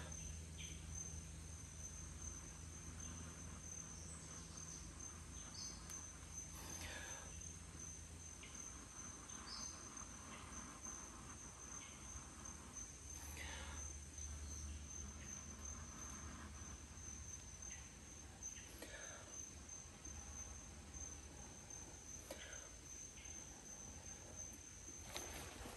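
Steady high-pitched chirring of crickets, with a soft puff of breath every five or six seconds from a man blowing into a smouldering tinder bundle to bring the ember to flame.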